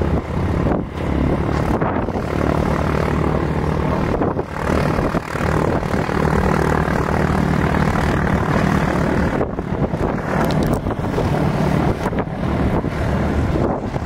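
Small single-engine propeller plane's piston engine and propeller running at full power as it takes off and climbs away, a steady drone.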